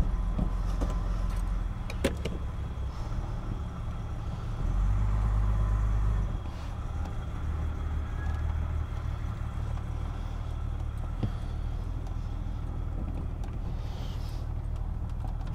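Jaguar XJ6 straight-six on SU carburettors running at a low, steady idle of about 900 rpm shortly after a cold start, which the owner judges a little lean, as the car moves off slowly. The engine grows louder for about a second and a half near the middle, and there is a short knock about two seconds in.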